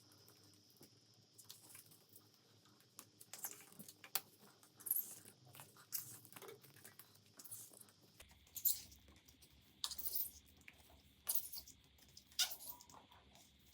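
Irregular light clicks, taps and rustles of small handling noises.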